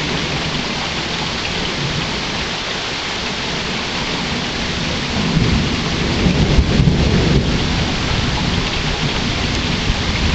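Steady rain falling. About five seconds in, a low rumble of thunder swells up and rolls on under it.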